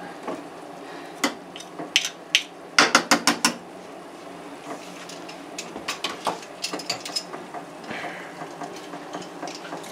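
Metal garlic press clicking and knocking as garlic cloves are pressed into a skillet, with a quick run of about six taps around three seconds in and lighter clicks after.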